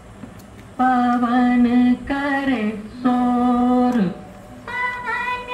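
Old Hindi film song playing from a cassette on a MAXstar MX-2727 tractor cassette deck. After a short quiet gap, a singing voice holds long, steady notes, with one sliding down in pitch about two seconds in.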